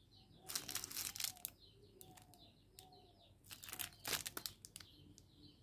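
Plastic candy wrappers and biscuit packets crinkling as they are handled, in two spells of rustling, the first about half a second in and the second near the end. Faint short chirps sound behind.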